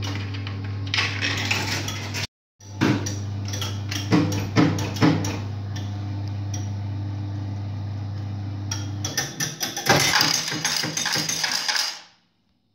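Merkur Saturn Uranus electromechanical slot machine running with a steady low hum, with several sharp mechanical clacks a few seconds in. Near the end there is a dense burst of metallic rattling as coins pay out into the metal tray, then the sound cuts off.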